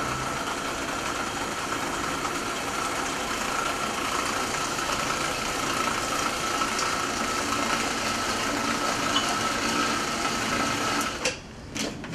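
Food processor motor running steadily with a constant whine, puréeing sole fillet with egg white and cream into a mousse. It switches off about eleven seconds in, followed by a few clicks.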